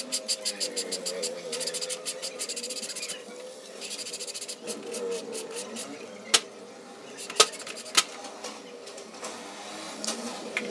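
Handling noise from a turbo wastegate actuator's diaphragm housing being turned and worked by hand on a workbench. A fast run of small clicks lasts about three seconds, followed by lighter rubbing and three sharp clicks about halfway through.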